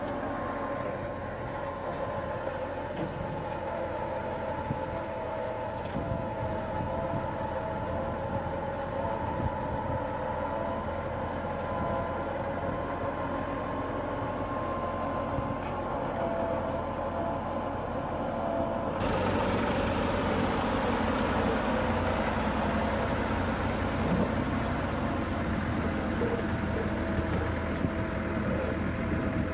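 Massey Ferguson 385 tractor's diesel engine running under load with a steady wavering whine while its rear-mounted crane works a clamshell bucket. About 19 seconds in the sound cuts abruptly to the louder engine and rumble of a tractor pulling a loaded trolley.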